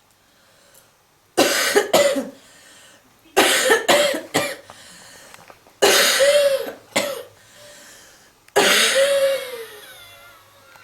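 A person coughing heavily in four bouts, each of several hard coughs in quick succession, starting about a second and a half in: a smoker's cough during smoking.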